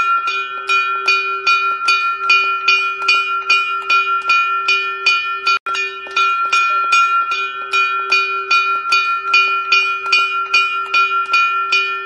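Small hanging metal bell rung rapidly and evenly, about three strikes a second. Each strike rings on into the next, so a clear steady tone is held throughout. There is a momentary break about halfway.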